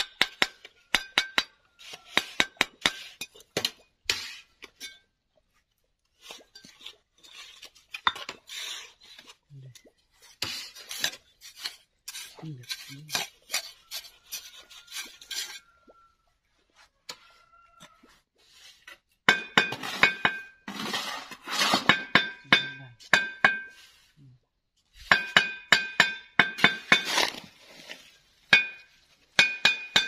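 Steel bricklaying trowel knocking and scraping on clay bricks bedded in wet mortar: runs of sharp metallic clinks, each with a short ring, coming fastest in two quick runs in the second half.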